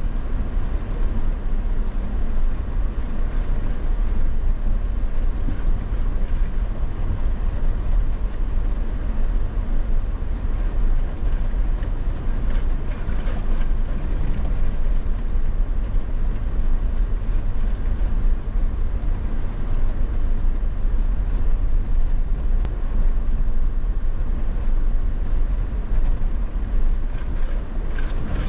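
Off-road vehicle driving along a dirt trail: a steady, loud rumble of engine and tyre noise, with no let-up.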